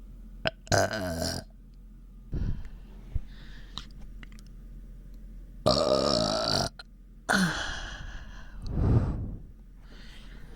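A person belching repeatedly: about five burps, the longest lasting around a second and the last one deeper. These come from a bloated, upset stomach.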